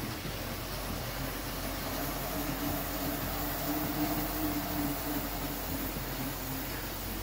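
A home elliptical trainer and an exercise bike running under pedalling, with a steady mechanical whir and rumble from their flywheels and linkages. A low hum comes in about two seconds in and fades out near the sixth second.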